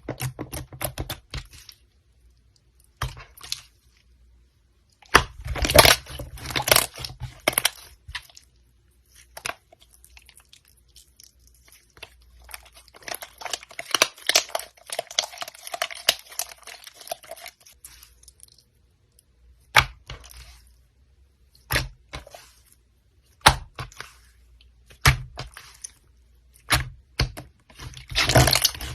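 Slime being pressed and squished by hand, giving irregular crackling, popping and crunching sounds with short quiet gaps between handfuls.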